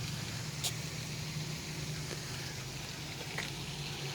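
Steady splashing of a duck pond's water feature, with a low steady hum underneath and two faint clicks, one near the start and one near the end.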